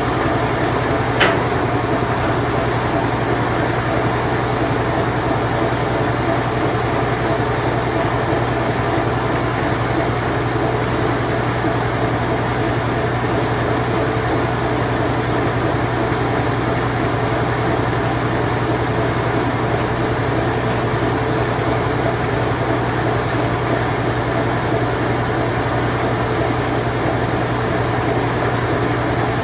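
A circa 1988–1991 Whirlpool Imperial Clean Touch washing machine running its spin cycle: a steady, even hum and whir. There is a single sharp click about a second in.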